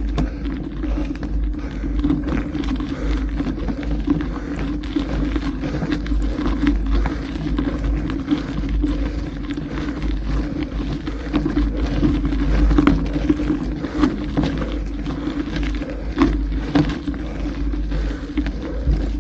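Mountain bike ridden over a forest road: steady tyre noise with many small rattles and clicks from the bike, over a low rumble.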